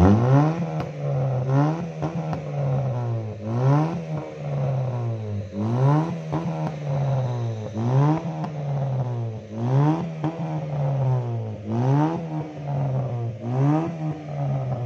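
Honda Brio's four-cylinder petrol engine revved in repeated quick throttle blips, each a short rise and fall in pitch, heard at the tailpipe. It runs through an aftermarket HKS racing muffler that replaces the stock resonator and muffler, giving the deep, bassy exhaust note the fitters call "full ngebas".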